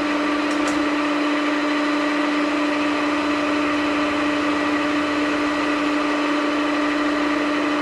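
Vertical milling machine cutting a hexagon flat with an end mill under power feed: a steady running tone from the spindle over an even cutting hiss, unchanging throughout. The feed rate is well matched to the cut.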